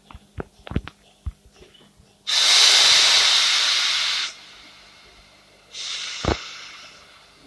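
Electric multiple unit standing at the platform, venting compressed air: a loud hiss starts about two seconds in and cuts off sharply, then a second, shorter hiss comes near the end with a click in it. A few light clicks come before the first hiss.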